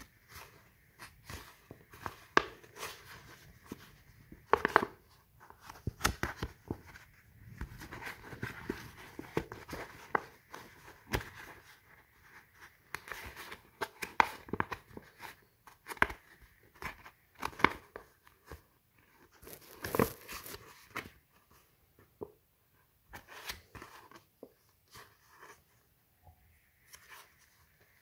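Scored polypropylene sheet being creased by hand along its score lines: an irregular run of sharp clicks and crackles as the plastic bends at the scores, with softer rustling of the sheet between.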